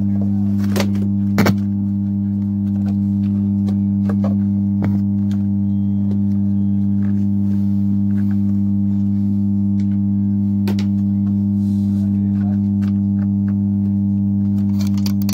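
4440-IC power amplifier humming steadily through its loudspeaker: a low mains hum with fainter tones stacked evenly above it. A few clicks and knocks come from the board and wiring being handled. The hum is a fault in the amplifier, which the repairer suspects lies in a small capacitor on the board.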